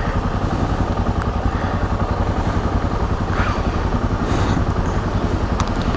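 Yamaha XT 660Z Ténéré's single-cylinder four-stroke engine running steadily at low revs, with an even, unchanging pulse.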